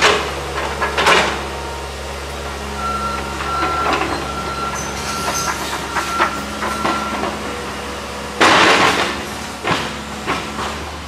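John Deere excavator's diesel engine running steadily while it works through a demolished wood-frame cottage, with a thin high whine through the middle as the boom lifts. Wood and debris crack and crash near the start and about a second in, and a louder crash of falling wreckage comes about eight and a half seconds in.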